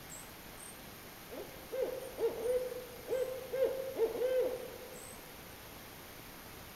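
Barred owl giving its 'who cooks for you, who cooks for you-all' call: about eight mid-pitched hoots in two groups of four, each rising and falling in pitch, lasting about three seconds from about a second and a half in.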